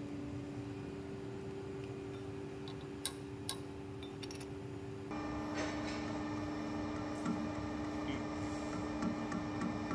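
Steady machine hum with two sharp metal clicks about three seconds in, from a chuck key being worked in the lathe chuck. About five seconds in, the metal lathe takes over, running louder with its chuck spinning and small irregular ticks as the cutting tool turns the metal workpiece.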